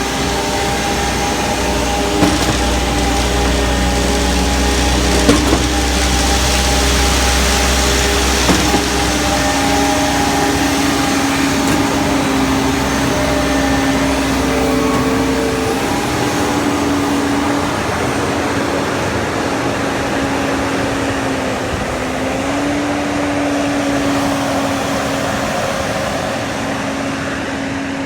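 Concrete pump truck running steadily under load, a continuous mechanical drone whose pitch shifts slightly now and then. A few light knocks come in the first third, and a deep low rumble drops away about halfway through.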